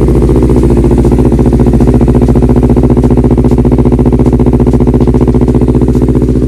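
Honda CBR250RR parallel-twin engine idling through an R9 H2SS aftermarket exhaust with the dB killer removed: a steady, even, bassy exhaust note, round-sounding, with no throttle applied.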